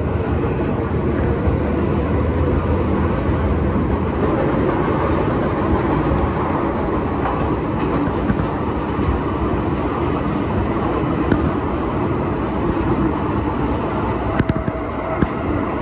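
MTR M-train electric multiple unit running at speed on the underground Kwun Tong line: a steady rumble of wheels on rail, with a faint steady motor tone coming in near the end.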